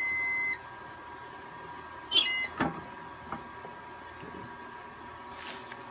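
Heat press timer beeping steadily for about a second, then about two seconds in a short chirp and a sharp clack followed by a click as the press is released and raised open. A faint steady electronic whine runs underneath.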